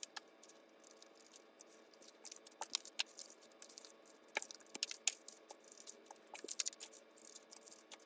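Faint, irregular clicks and rustles of paper cash and paper clips being handled and sorted by hand.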